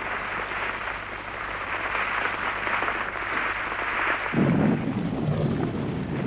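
Avalanche sound effect: a loud rushing of snow, with a deep rumble joining about four seconds in.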